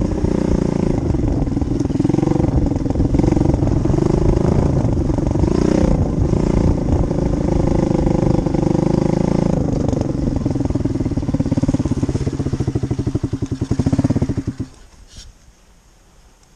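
Small off-road vehicle engine running, its pitch wavering with the throttle, then shutting off abruptly near the end.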